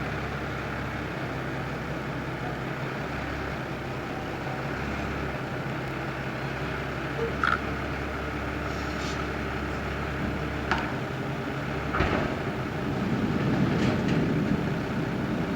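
Fendt tractor engine running steadily while a trailed potato harvester works, with a few short sharp knocks in the middle and a louder rumble building near the end.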